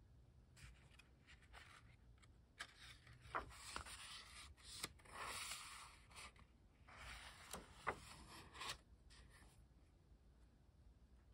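Paper pages of a small sketchbook being turned by hand: soft rustles and swishes in two spells, with a few light ticks.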